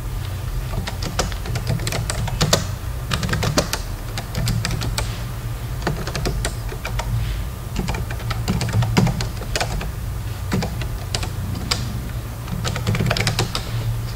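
Typing on a computer keyboard: a run of irregular key clicks, some in quick flurries, over a steady low hum.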